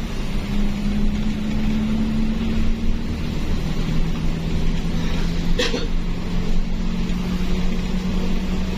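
Intercity bus engine and road noise from inside the moving bus: a steady low drone that steps down in pitch about three seconds in. A single short sharp click or rattle comes about five and a half seconds in.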